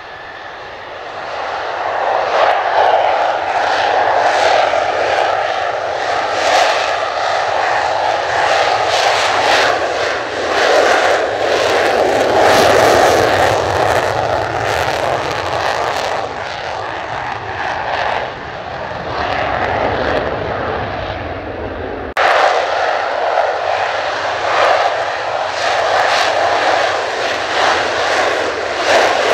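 Mitsubishi F-2's single General Electric F110 afterburning turbofan at full afterburner on the takeoff roll: a loud, deep, crackling jet roar that swells over the first couple of seconds. It breaks off abruptly about 22 seconds in and resumes at the same strength.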